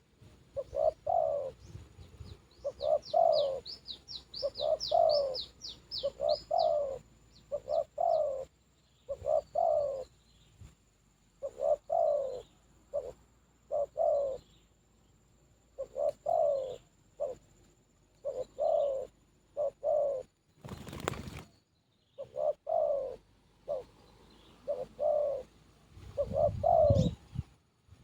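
Spotted dove (terkukur) cooing over and over in short groups of notes. A small bird gives a quick run of high chirps early on, and a brief rush of noise comes about three-quarters of the way through.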